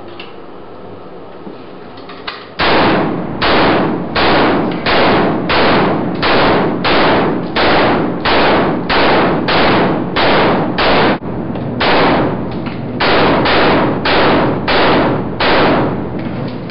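Kalashnikov-pattern (AK) rifle fired in single shots at a steady pace, about one and a half shots a second, with a short break about two-thirds of the way through. There are some twenty shots in all, starting a couple of seconds in, and each one echoes off the concrete walls of an indoor range.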